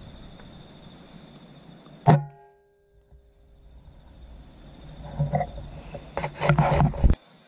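A single rifle shot about two seconds in, a sharp crack with a short ringing tone after it, over a steady high insect drone. Near the end comes a stretch of louder irregular noise that cuts off suddenly.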